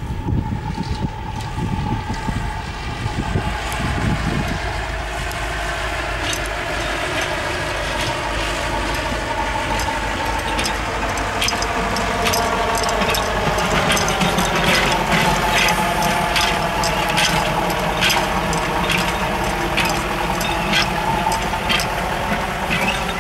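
Diesel-hydraulic shunting locomotive of the Krupp-built D301 class running as it moves through the yard, its engine pitch rising and falling and growing louder as it comes closer, with a scatter of sharp clicks.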